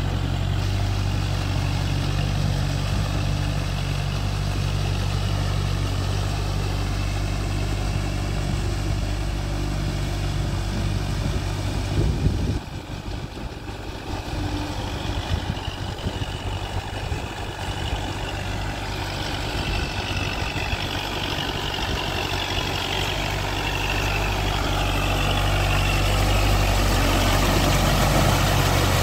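Kubota MU4501 tractor's four-cylinder diesel engine running under load as it drags a puddling leveller through a flooded paddy on cage wheels. The sound changes abruptly about twelve seconds in, and the engine grows louder near the end as the tractor comes close.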